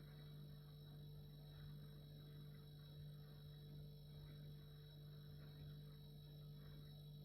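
Refrigerator running: a faint, steady low hum with a fainter higher tone above it, unchanging throughout.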